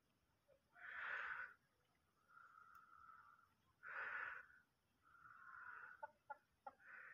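Aseel chickens making soft, breathy calls: two louder wheezy calls about a second in and four seconds in, with fainter humming notes between them and a few light clicks near the end.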